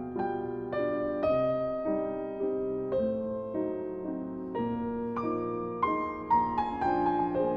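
Background piano music: a gentle melody of struck notes, each fading away, about two a second.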